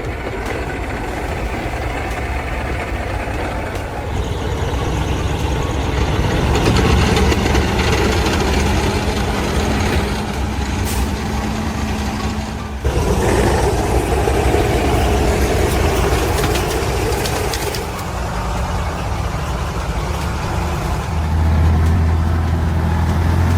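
Logging truck's engine labouring under heavy load through deep mud, with a short sharp break about halfway through and a deeper, louder note near the end.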